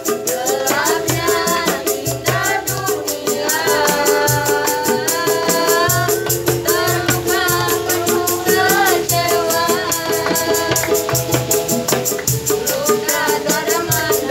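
Street busking band playing a song: a woman's singing voice over a strummed ukulele, a tambourine shaken in a steady rhythm and small hand drums struck on the beat.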